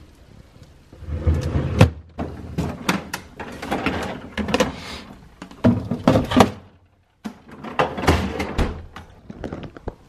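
Groceries being put away in a refrigerator: plastic produce bags rustling and the crisper and freezer drawers sliding and knocking, a string of sharp thunks and clatter. Everything stops for a moment about seven seconds in.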